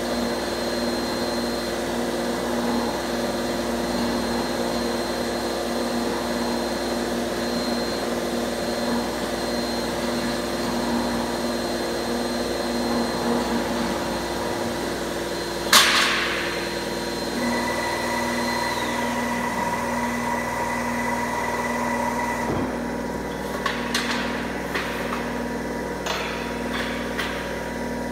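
Angle-bar bending machine running with a steady whine and hum as it rolls a steel bar into a ring. About sixteen seconds in there is one sharp, loud metal clang that rings briefly. In the last few seconds the hum eases and a few lighter metal knocks follow as the bent steel coil is handled.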